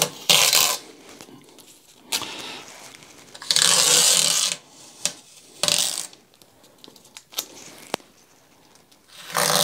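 Masking tape being peeled off the inside glass seams of a newly siliconed aquarium, in several separate pulls of up to a second or so each; the longest and loudest come about three and a half seconds in and again near the end.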